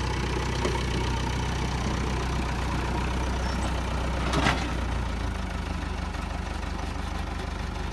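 Diesel engine of a backhoe or tractor idling steadily, with a single sharp knock about four seconds in; the low engine note changes slightly soon after.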